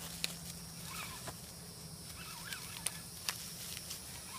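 Footsteps and rustling through grass and dry leaves while walking behind a tracking dog on a leash, with a few sharp snaps or clicks and faint wavering calls in the background.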